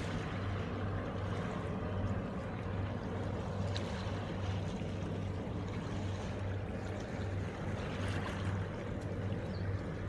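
Calm sea washing against shore rocks, with the low, steady hum of a distant boat engine underneath.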